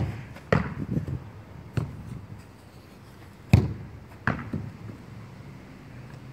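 Football being kicked and thudding: a hard kick at the start followed by a few bounces, then a second, louder kick about three and a half seconds in with more thuds of the ball soon after.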